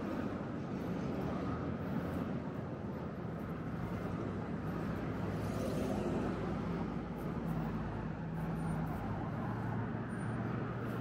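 Steady road traffic: cars driving past on a multi-lane street, engines and tyres humming, with one passing closer about six seconds in.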